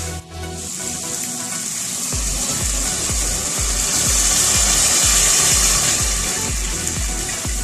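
Water poured into a pot of sautéed onions and tomatoes, a rushing hiss that swells toward the middle, over background music with a steady beat. The beat drops out briefly near the start.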